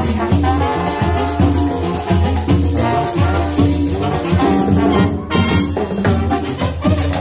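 Upbeat Latin dance music played by a band: horns carrying the melody over a steady bass line and shaker percussion, with a regular beat throughout.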